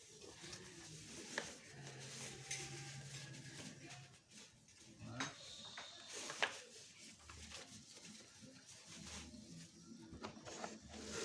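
A bleating animal call, about two seconds long, near the start, with a few sharp clicks around it.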